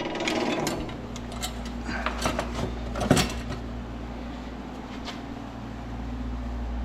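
Light clicks and rustles of parts being handled, with one sharper knock about three seconds in, over a steady low hum.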